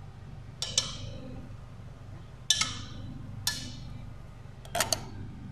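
Metal spoon knocking against a metal cooking pot while stirring butter in it: sharp clinks with a short ring, about six strikes, two of them close together near the start and two near the end, over a low steady hum.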